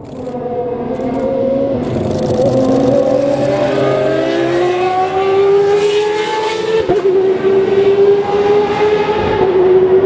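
Group C prototype race car engine under acceleration, coming closer and getting louder, its note climbing steadily in pitch. About seven seconds in the note breaks briefly and carries on a little lower and steadier.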